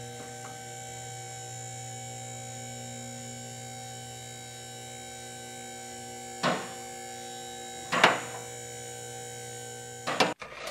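A small electric motor hums steadily as the toy fire station's turntable rotates the toy fire engine, with two short sharp clatters about six and a half and eight seconds in. The hum stops just before the end.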